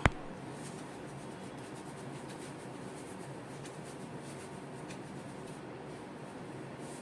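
A single sharp crack right at the start, a joint popping under a chiropractic thrust timed to the patient's breath out. It is followed by quiet room noise with a few faint rustles.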